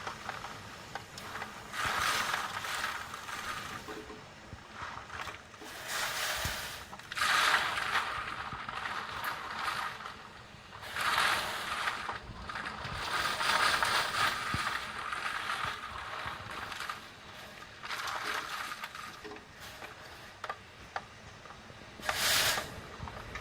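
Typhoon wind gusting, a rushing noise that swells and fades in surges every few seconds.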